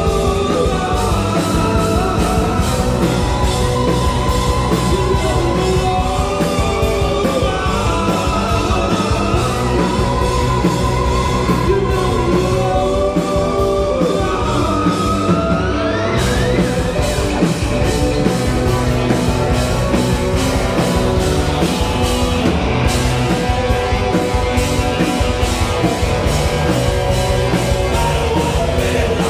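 Rock band playing live: electric guitars, bass and drums with regular cymbal hits under a singer. About halfway through, a note slides up in pitch and the cymbals grow brighter.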